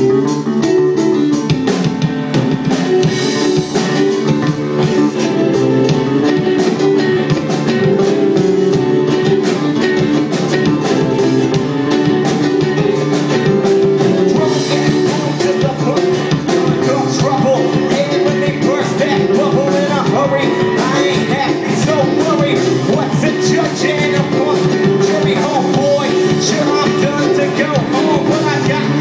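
Live ska band playing, with electric guitars, bass and a drum kit keeping a steady, driving beat.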